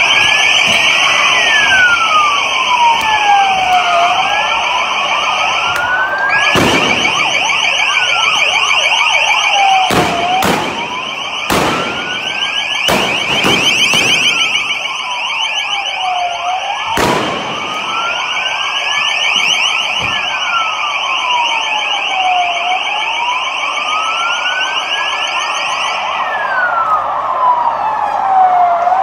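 Police van sirens: a slow wail rising and falling about every six seconds over a steady, rapidly warbling high tone that cuts off near the end. Several sharp bangs break in over the middle stretch.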